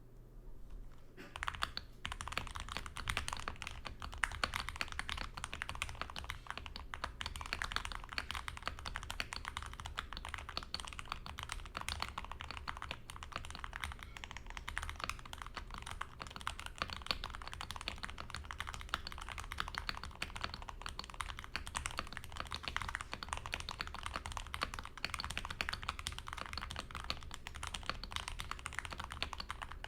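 Fast, continuous typing on an SK61 mechanical keyboard with tactile Gateron optical brown switches, lubed and filmed, butyl rubber foam in the case, and stock keycaps. The typing starts about a second in.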